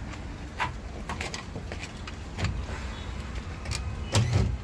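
Steady low mechanical hum with a few scattered clicks and knocks, the loudest a thump near the end.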